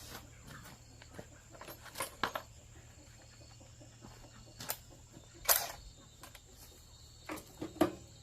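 Rural outdoor ambience: insects keep up a steady high-pitched drone, with scattered short clicks and knocks, the loudest about five and a half seconds in.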